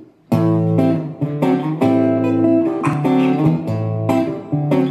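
Acoustic guitar strumming chords, starting suddenly about a third of a second in: the instrumental introduction to a song, before the vocals come in.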